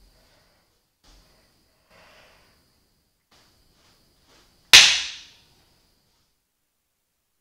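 A motorcycle brake-disc bolt cracking loose under a hex key: one loud, sharp crack about five seconds in that fades over about a second, the thread-locker seal giving way. A few faint clicks of the tool and hand come before it.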